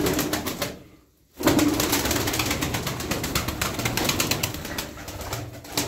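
Turkish tumbler pigeons taking off and flapping hard: a short burst of wing beats at the start, then after a brief pause a fast, steady clatter of wing beats lasting about four seconds.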